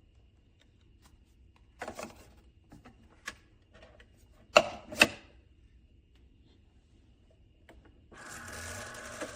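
Light plastic clicks and two sharp clacks, like a coffee maker's lid and parts being handled, then about 8 seconds in a steady mechanical whir starts up, in keeping with a Keurig K-Express single-serve brewer's pump running.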